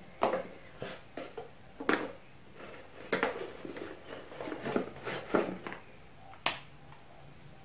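Hands rummaging through a gift box of cosmetics, with irregular clicks, taps and rustles as packaging and plastic product containers are moved and picked up. A single sharp click sounds near the end.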